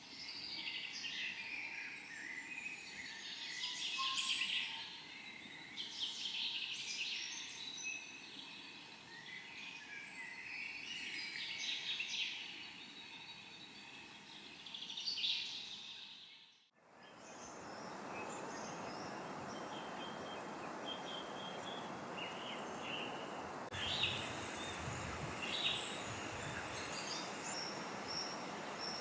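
Dense chorus of many songbirds calling and singing over one another. After a sudden cut it changes to a steady rushing background with fewer, scattered bird calls and a couple of soft low thuds late on.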